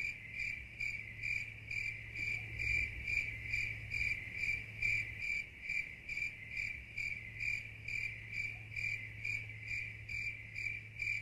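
A cricket chirping steadily, about two even chirps a second, over a faint low hum.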